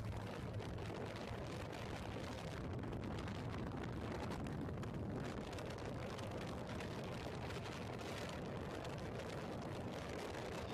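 Motorcycle riding along a road: the engine running steadily under wind rushing over the microphone.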